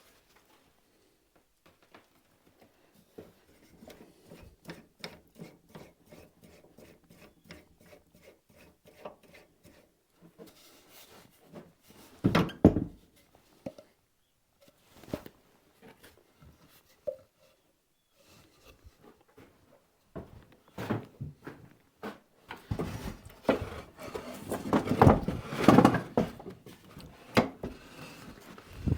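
Wooden workpieces being handled at the bench: light ticking and rubbing, a sharp knock about twelve seconds in, then a louder run of wood knocks and scraping near the end.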